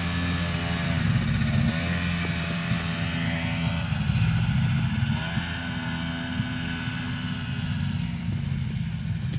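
Snowmobile engine running as it rides across snow, its pitch rising and falling with the throttle.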